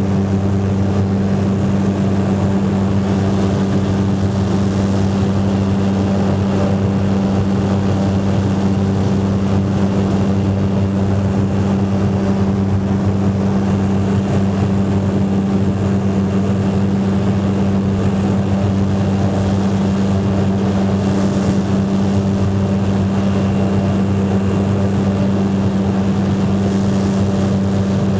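Ski plane's propeller engine running at a constant pitch: a steady, unchanging low drone.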